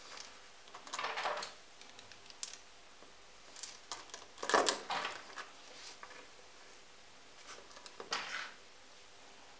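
Buttons clicking and clattering against each other as they are handled and stacked on a thread, in a few short bursts with the loudest about halfway through.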